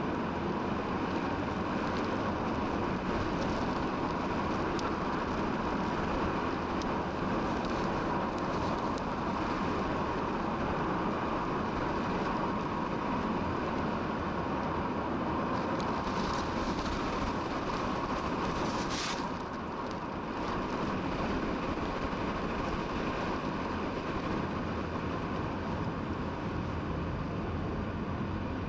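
Steady road and engine noise heard from inside a moving vehicle, with a faint steady hum. About two-thirds through, a brief high-pitched sound comes, and the noise drops slightly in level after it.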